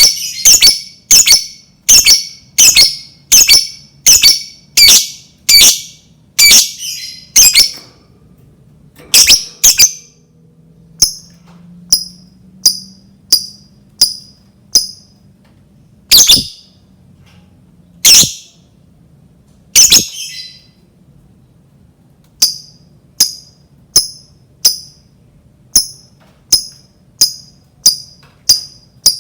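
Lovebird giving loud, shrill, sharp calls in a repeated series: about one every three quarters of a second at first, then a few spaced calls, then a quicker run of shorter calls, about two a second, near the end.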